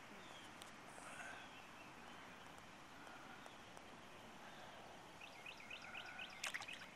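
Quiet open-air lake ambience with faint bird calls. About five seconds in comes a quick run of about six short rising chirps, then a couple of sharp clicks near the end.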